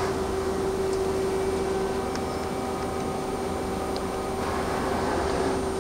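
Mazak Quick Turn Nexus 300-II CNC turning center running with a steady hum and a constant whine, as its turret slide is jogged along the Z axis.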